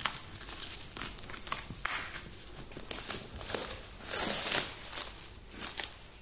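Plastic stretch wrap being cut with scissors and torn off a cardboard box. It crinkles and crackles irregularly, with a louder rip about four seconds in.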